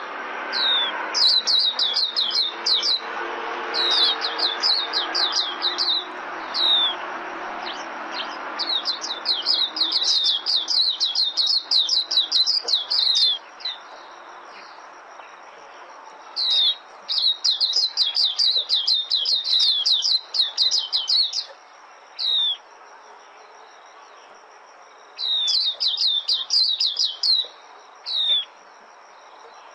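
White-eye (vành khuyên) singing its rapid twittering song: fast runs of high, downward-slurred chirps lasting a few seconds each, broken by single separate notes.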